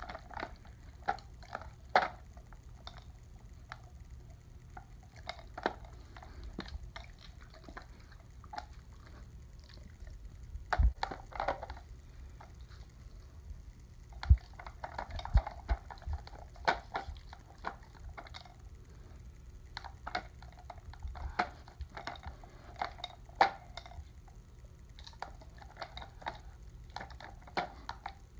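A dog nosing at a plastic treat-puzzle toy, spinning its plastic cups: irregular clicks and knocks of plastic, with wet licking sounds between them.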